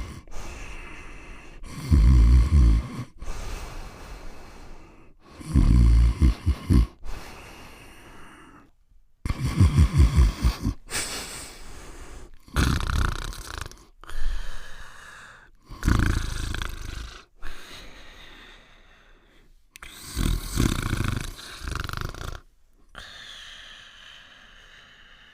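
Cartoon dog snoring: a loud, rattling snore roughly every four seconds, with a softer, whistling breath between snores.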